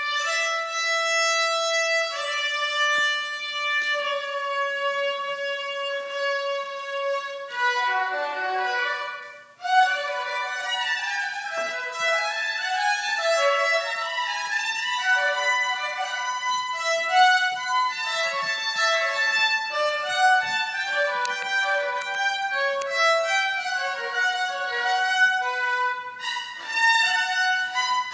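Solo violin playing: long held notes for the first seven seconds or so, a brief break around nine seconds in, then a quicker passage of many short notes.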